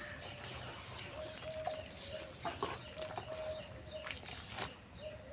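Dry, crumbly clods being crushed and crumbled between fingers, giving scattered sharp crackles and crunches. Behind them runs a faint tone that breaks off and comes back every half second or so.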